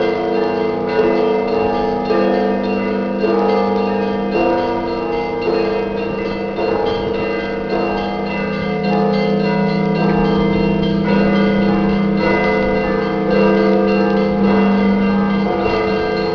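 Several church bells pealing together. They are struck over and over, and their tones overlap and ring on without a break.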